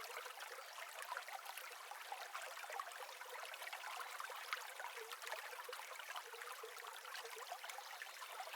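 Faint trickling, lapping water with small crackling drips, thin and without any low end.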